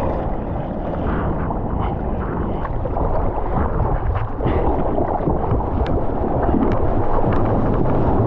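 Seawater sloshing and splashing right around a bodyboard as it is paddled into a wave and then rides the whitewater, with wind buffeting the microphone. The water gets louder about three seconds in, with more crackling spray towards the end.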